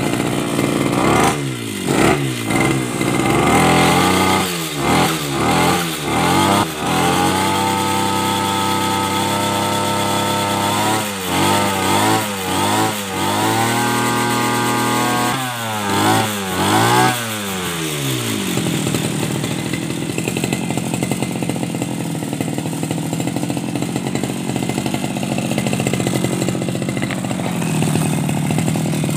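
Okazawa backpack brush cutter's small two-stroke engine revved up and down again and again with the throttle, sometimes held high for a few seconds. About two-thirds of the way in it drops back to a steady idle.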